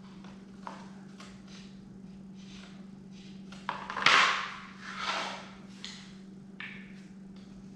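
Flat pressboard sofa frame pieces being handled on a tile floor: light clicks, then a knock and a loud scraping shuffle about four seconds in as a board is slid and moved, and a smaller scrape a second later, over a steady low hum.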